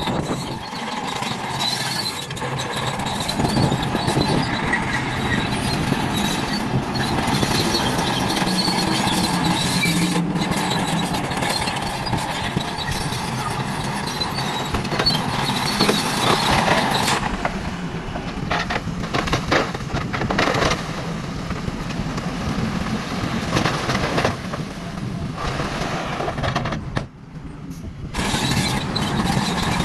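Toy trucks and a toy bulldozer running, their small motors whirring without a break, with a short dip about 27 seconds in.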